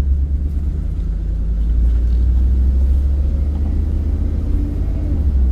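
Steady low rumble of a truck being driven, heard from inside the cab.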